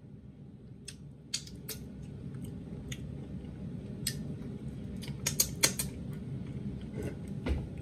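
A person licking and sucking food off his fingers: a series of sharp, wet smacks, with the loudest cluster a little over five seconds in.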